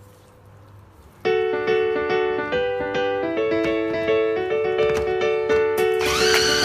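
Piano background music starts about a second in. Near the end a Black+Decker electric mini food chopper's motor switches on with a rising whine that then holds steady, grinding the raw chicken.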